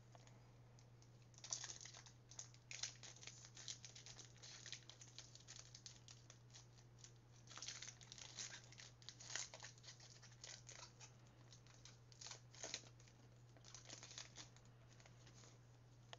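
Faint crinkling and tearing of trading-card pack wrappers being ripped open and handled, in irregular bursts, over a steady low hum.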